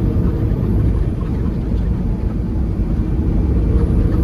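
Steady in-cab drone of a semi truck cruising on the highway: engine and road noise.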